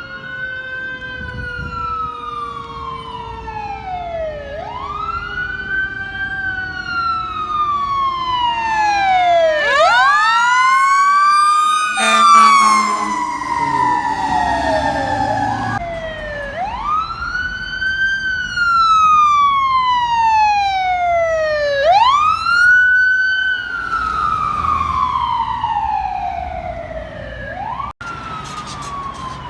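Fire engine sirens wailing, each cycle a quick rise in pitch and then a slow fall over several seconds, repeating about every five to six seconds. Around the middle, two or more sirens overlap, and the sound changes abruptly a few times.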